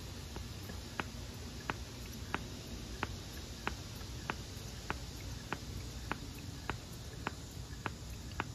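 Faint, evenly spaced clicks, about one and a half a second, from the newly fitted primer bulb on an Echo GT-2000 string trimmer's carburetor being pressed over and over.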